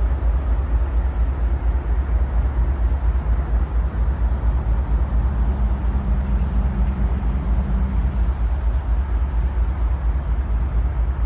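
Wind buffeting the microphone on the open deck of a moving cruise ship: a loud, unsteady low rumble with a broad rush over it. A faint steady hum joins partway through.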